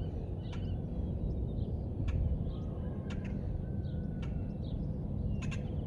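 Outdoor morning ambience: short, faint bird chirps every second or so over a steady low rumble.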